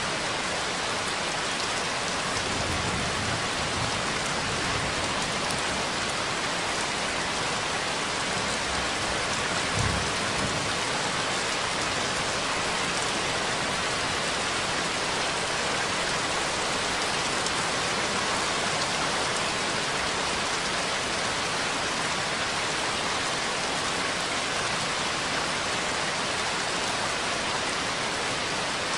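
Steady, even rain. Low rumbles come a few seconds in, and a short one about ten seconds in.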